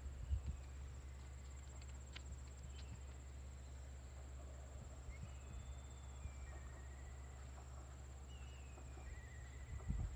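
Quiet rural ambience: a steady high-pitched insect trill, a few short gliding bird calls in the second half, and a low steady rumble, with a soft thump just after the start and another near the end.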